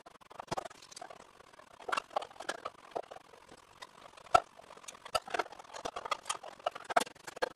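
Irregular clicks, scratches and crackles of a thin plastic cup being worked at with a small tool, the tool cutting into its upturned base. The sharpest click comes a little past the middle, and another near the end.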